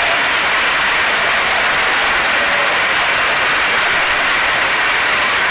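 A large convention hall crowd applauding steadily, a loud, even clapping.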